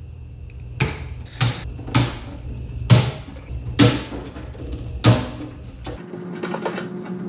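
Screwdriver turning out the screws of a DVD player's metal case: six sharp metallic clicks over the first five seconds. After that comes a faint steady hum with rapid small ticks as a stiff screw keeps turning.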